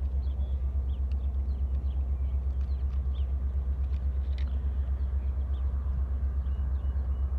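A steady, low pulsing rumble, like a running motor, throughout, with small birds chirping over it.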